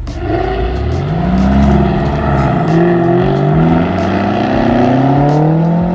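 Car engine accelerating. Its pitch climbs over the first couple of seconds, then rises again more slowly.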